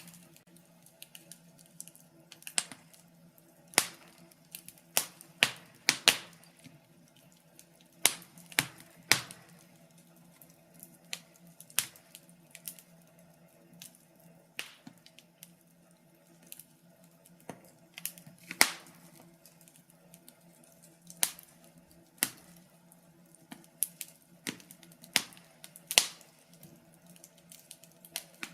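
Wood fire crackling in a fireplace: irregular sharp pops and snaps from the burning logs, a few much louder than the rest, sometimes several close together and sometimes a second or two apart.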